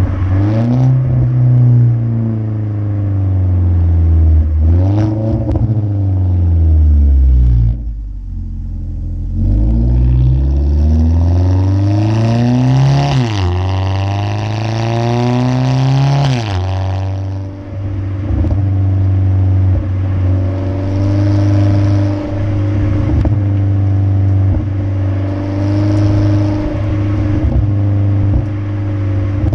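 2015 Ford Focus SE's 2.0 L four-cylinder through a muffler-deleted exhaust while driving. It revs up and falls back about four times, with a few short crackles and pops, then settles to a steady drone for the last ten seconds or so.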